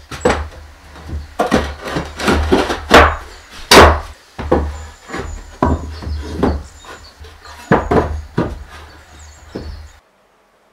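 Wooden boards knocking and clattering as they are handled and set into a pine shelf frame: a dozen or so sharp, irregular wooden knocks, the loudest a little past the middle, cutting off suddenly near the end.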